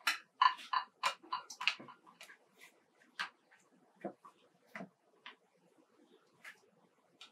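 Hands pressing and punching down risen bread dough in a glass bowl, a quick run of short sharp sounds as the air is pressed out. A plastic dough scraper then works the dough off the glass, with a few scattered soft knocks as the dough and bowl are handled.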